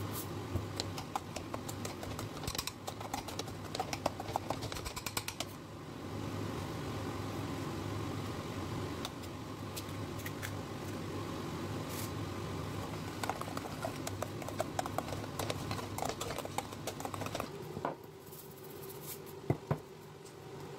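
Metal potato masher working boiled potatoes in a stainless steel pot, with rapid clicks and scrapes of the masher against the pot over a steady hum. The mashing stops near the end, leaving a quieter hum.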